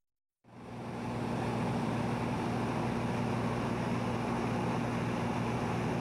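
Steady aircraft engine drone with a low hum, fading in from silence about half a second in and then holding even.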